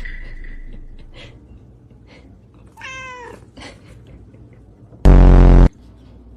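A cat meows once about three seconds in, a single call that bends in pitch. A sudden, very loud, low buzzing blast of about half a second follows and cuts off sharply.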